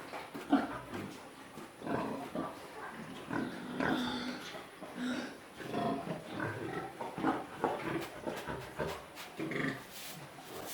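Pigs making a run of short, irregular grunts and squeals.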